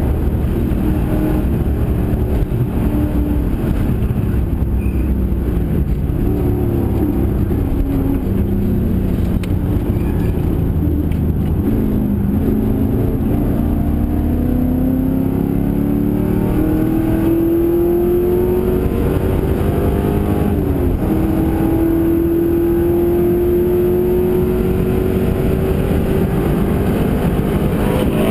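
Holden V8 race car's engine heard from inside the cabin at racing speed, its revs rising and falling through gear changes. In the first half the pitch steps down as the car slows for corners. About halfway there is a long climb through one gear, a sudden drop at an upshift, then the pitch climbs again near the end.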